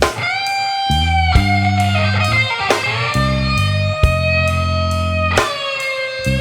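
Slow blues solo on a Hagstrom electric guitar: long sustained notes bent up and down in pitch, over a backing track of bass and a steady light beat.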